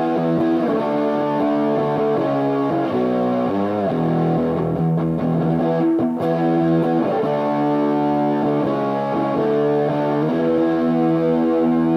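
Greco WS-STD electric guitar, made in Japan in 2001, played through distortion: held chords changing every second or two, with a wavering, bent chord about a third of the way in.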